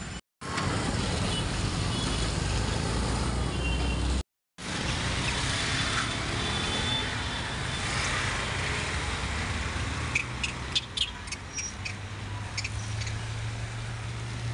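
Steady outdoor road-traffic noise, a low rumble with hiss, cutting out to silence twice, just after the start and about four seconds in. A run of sharp clicks or taps comes about ten to twelve seconds in.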